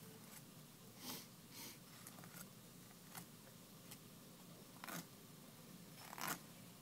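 Faint, short scraping strokes of a knife sliding along fish bones while filleting, about six of them spread over several seconds in near silence.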